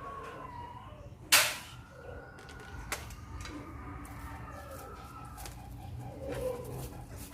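Birds calling in the background, with drawn-out faint calls throughout. A short, loud noise about a second and a half in and a sharp click about three seconds in, from handling at the sink.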